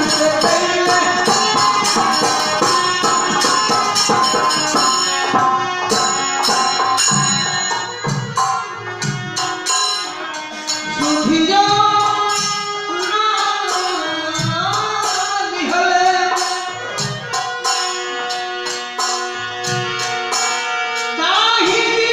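Bhojpuri Purvi folk song music: a gliding melody over hand drums and jingling percussion, keeping a steady rhythm.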